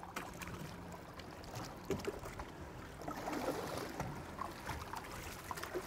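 Water sloshing and gurgling along a boat's hull, heard from underwater, with scattered small clicks and pops.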